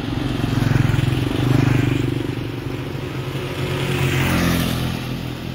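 Small motorbike engines passing along the road, their hum rising and falling as they go by; loudest in the first two seconds, with another pass around four seconds in.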